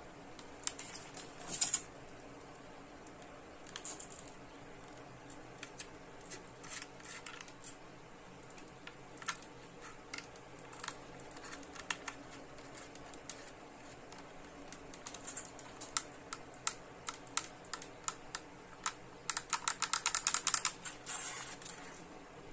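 Scattered light clicks and taps from a plastic-bodied soldering gun being turned over in the hand, with a quick run of rapid clicks near the end.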